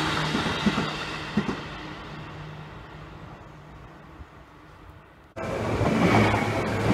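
A Seibu Railway N2000-series electric train passes, with a couple of knocks from the wheels, and its running sound fades away over a few seconds. About five seconds in, the sound cuts suddenly to a train passing close by, loud, with a steady hum and a thin high tone.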